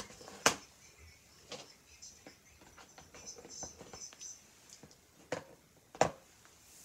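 Hand-handling noises: a series of sharp clicks and knocks as small objects are picked up and moved. The loudest come about half a second in and about six seconds in, with softer taps between.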